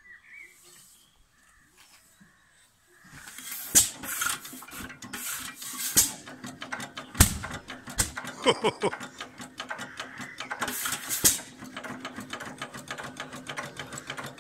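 A 1925 Alamo 7 hp stationary petrol engine catches about three seconds in after its flywheel is turned over by hand. It then runs with a rapid mechanical clatter, broken by occasional loud sharp bangs a second or few apart.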